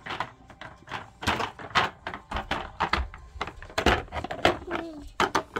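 Irregular clatter of hard plastic clicks and knocks as a toddler handles a red plastic toy, busiest in the middle.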